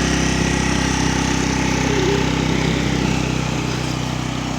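Engine of a 130cc single-cylinder automatic-scooter drag bike running steadily at a constant speed.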